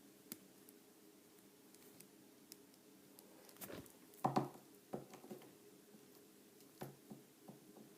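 Light clicks and knocks of a plastic 6-inch action figure being handled and set on a surface, as it is posed to stand. The knocks come in a small cluster about halfway through and once more near the end, over a faint room hum.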